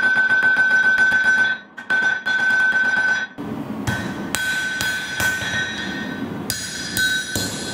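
A hand forging hammer striking a red-hot steel sword blade on an anvil, the anvil ringing with a steady high tone between blows. A quick run of blows breaks off briefly near two seconds in. From about three and a half seconds the blows come slower and more spaced. The blade's edge bevel is being forged down.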